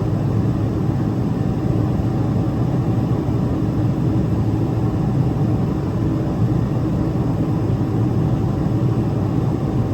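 Steady low rumble of a Boeing 777-300ER's GE90-115B jet engines and airflow, with a faint steady whine above it.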